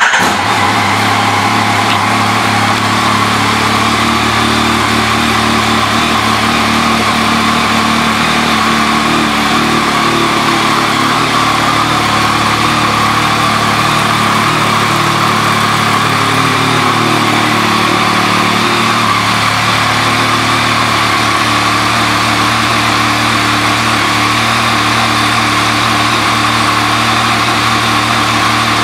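2020 Yamaha MT-09's 847 cc inline-three engine with an aftermarket Akrapovič exhaust, catching right at the start and then idling steadily.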